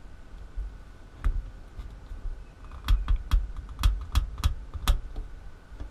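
Sharp plastic clicks and light handling knocks as a plastic inline filter is hand-tightened onto a Shurflo water pump's inlet. There are about seven clicks, mostly in the second half, in an irregular run.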